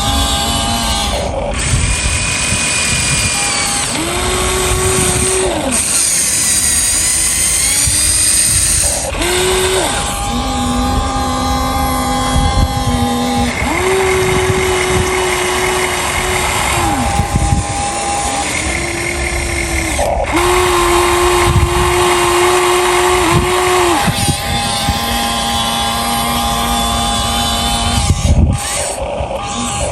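Small electric motors of a radio-controlled model excavator whining under load, starting and stopping every few seconds. The pitch steps between a lower and a higher note as each movement begins and ends.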